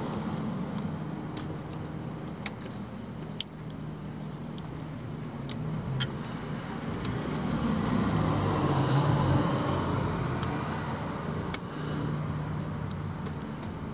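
Scattered sharp little clicks and ticks of hands and a tool on small metal and plastic parts in a pickup's engine bay, over a low steady rumble that swells about eight to ten seconds in.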